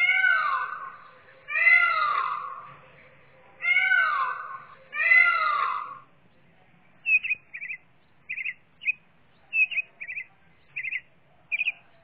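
Indian peafowl (peacock) giving four loud, wailing calls in two pairs, each falling in pitch, then a run of short, high chirps.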